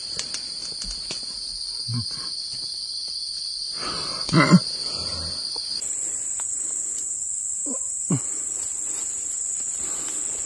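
Steady high-pitched insect drone in forest undergrowth, with a second, lower-pitched insect drone that stops about six seconds in. A brief, louder voice-like sound comes about four and a half seconds in, with a few short brush and handling noises.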